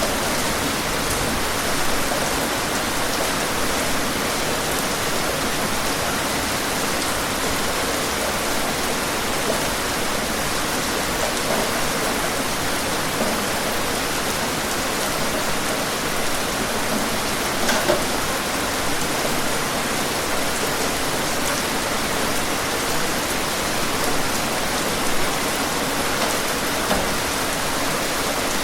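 Steady rain falling, an even hiss of rainfall with scattered individual drops ticking on a surface, one slightly louder spatter about two-thirds of the way through.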